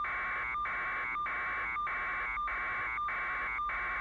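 Electronic buzzing in an even repeating pattern: a harsh buzz breaks off about every 0.6 seconds for a short steady tone.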